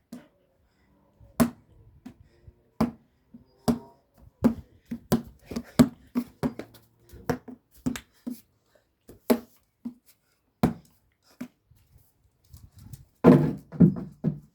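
A basketball being bounced on hard ground, a string of separate bounces each with a short hollow ring, irregular at first and then quicker for a few seconds, with a louder cluster of knocks near the end.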